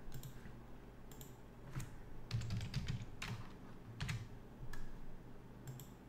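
Faint computer keyboard and mouse clicks: scattered single keystrokes with a quick run of taps a little over two seconds in.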